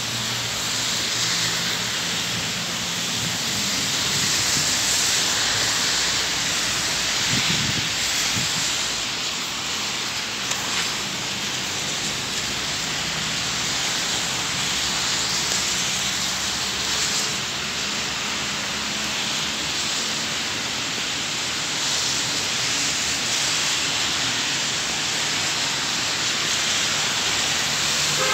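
Steady hiss of rain falling on a wet street, with a low hum of car engines underneath.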